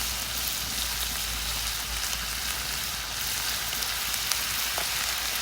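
Potatoes, onions and kielbasa sausage sizzling steadily as they fry in a hot pan.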